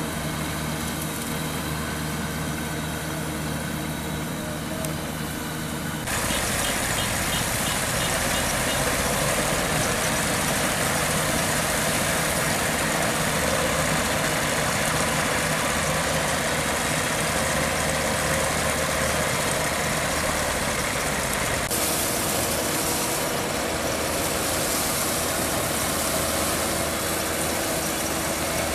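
Kubota DC-95 combine harvester running steadily in a rice paddy, engine and harvesting machinery under load. The sound changes abruptly and grows louder about six seconds in, and shifts again about two-thirds of the way through.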